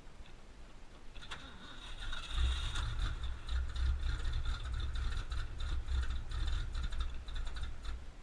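1979 Ford Bronco's cold V8 engine running. A low rumble grows louder about two seconds in, with rapid mechanical clicking and ticking over it.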